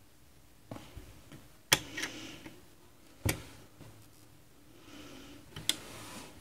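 Handling noise: a few sharp clicks and taps as multimeter probe tips are worked against a power supply board's metal terminals, the two strongest about a second and a half apart near the middle.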